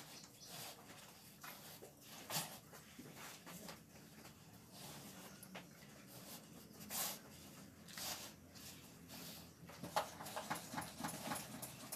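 Faint, short hissing spurts from a hand-held pump sprayer spraying tick-killer onto cattle, the longest about seven seconds in, among scattered small knocks; a quick run of clicks and spurts comes near the end.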